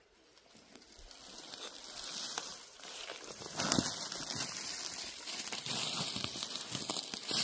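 Rustling and crackling of dry leaves and brush, with many small clicks, growing louder from about a second in.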